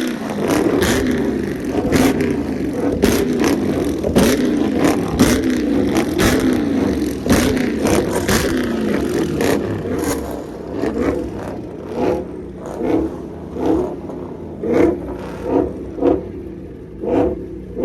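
Car engine revving hard for about ten seconds, then blipped in short revs about once a second.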